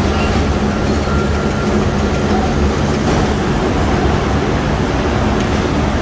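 Loud, steady low rumble and hum of steel rolling mill machinery running.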